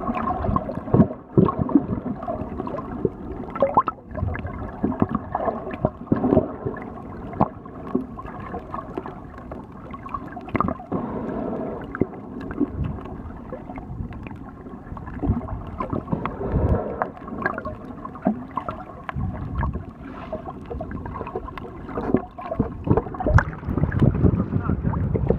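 Muffled underwater sloshing and gurgling heard through a camera held under water, with frequent irregular knocks from the moving water and the camera being handled. It grows louder near the end.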